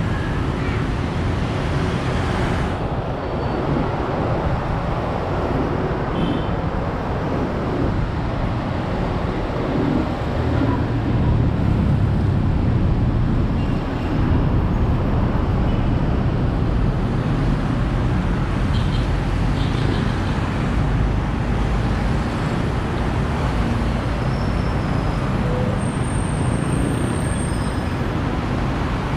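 Steady road traffic on a busy city street: a continuous rumble of passing vehicles.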